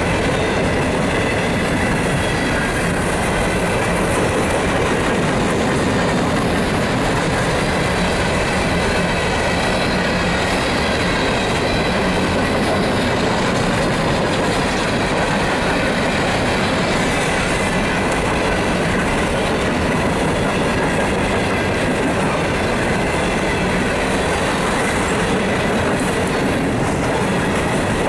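Freight train of hopper cars rolling steadily past, wheels clattering over the rail joints, with a faint high wheel squeal running through it.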